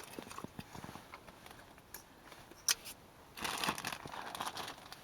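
Plastic bag of groundbait crinkling and rustling while bait is handled into a feeder, with small clicks, one sharp click near the middle and a louder stretch of rustling about three and a half seconds in.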